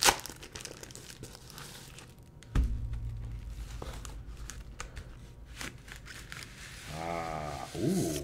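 A metallic foil bubble mailer torn open by hand: a sharp rip at the start, then crinkling and rustling of the padded envelope and paper. A low thump comes about two and a half seconds in, and a short wordless hum from a man's voice near the end.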